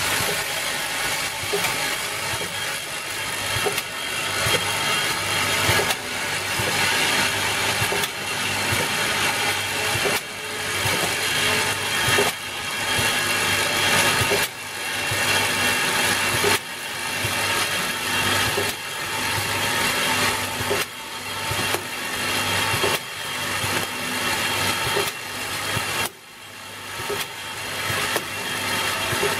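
Bottle packaging machinery running: a steady hum with many small clicks of bottles on the rotary table and conveyor, and a work cycle that builds up and drops off sharply about every two seconds.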